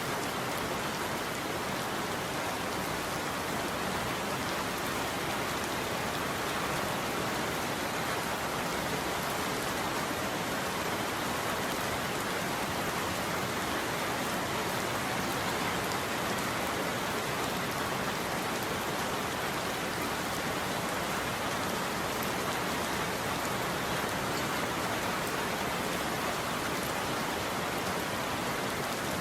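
Steady rain falling, an even hiss of drops that never changes for the whole stretch; it is the rain cover track of a subliminal audio.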